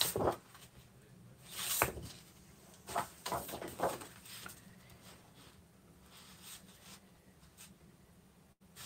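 Sheets of patterned craft paper being handled and slid over card stock: a few short paper rustles and swishes in the first four seconds, then only faint handling noise.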